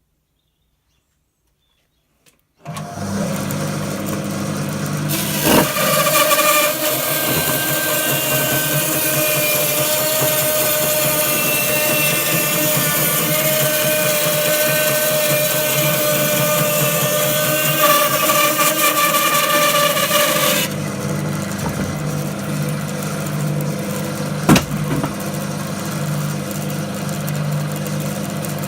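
Basato 3 bandsaw with a 3/4" varitooth blade, switched on about two and a half seconds in. It cuts through 6" ash, which gives a louder, hissing cut with a steady whine for about fifteen seconds. Then it runs free until the end, with a couple of single knocks.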